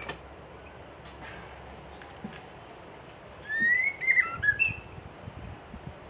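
White-rumped shama (murai batu) giving a short burst of quick, rising whistled notes about three and a half seconds in. Under it is the rustle of a cloth cover being drawn over a bird cage.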